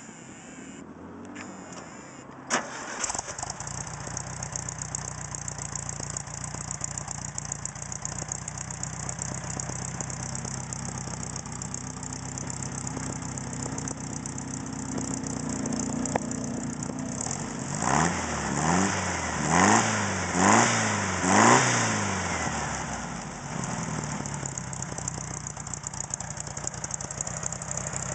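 Dune buggy's air-cooled Volkswagen flat-four engine cranking and catching with a sharp pop about two and a half seconds in, then idling steadily. About eighteen seconds in the throttle is blipped four times in quick succession, each rev rising and falling, before it settles back to idle.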